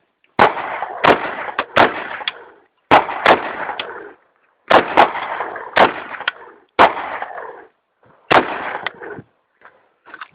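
Firearm gunshots: about a dozen sharp shots fired in short strings of one to five, each followed by a long echoing decay.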